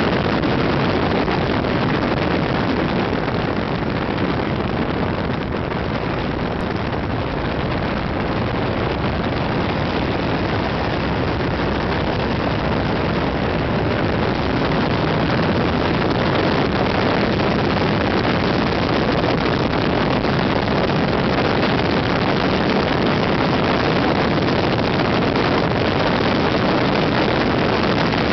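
Steady rush of riding wind on the microphone over a motorcycle engine running at road speed, with no changes in pace.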